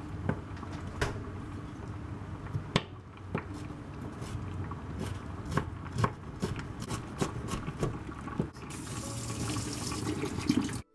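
Chef's knife chopping bean sprouts on a wooden cutting board: irregular knocks of the blade on the board over a steady low hum. The chopping comes quicker in the middle, and a steady hiss takes over in the last two seconds.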